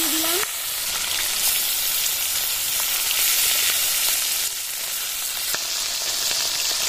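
Whole chandana ilish fish frying in hot mustard oil in a wok, a steady sizzle. A metal spatula scrapes and turns the fish, adding light clicks.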